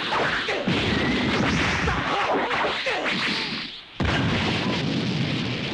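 Cartoon fight sound effects: a dense run of punch impacts and whooshes over a rushing energy-aura sound, broken by a short dip and a sharp new impact about four seconds in.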